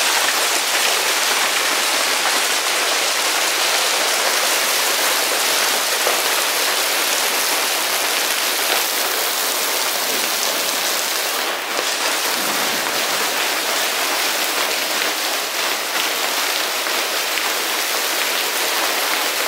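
Heavy hailstorm: hailstones pelting down in a dense, steady clatter of countless small impacts.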